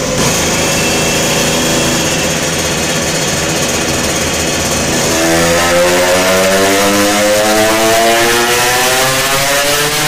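Kawasaki AR93, a single-cylinder two-stroke AR50 with a 93 cc big-bore kit, running on a roller dyno. It holds fairly steady revs at first, then about five seconds in a dyno pull begins and the pitch climbs steadily as the revs rise.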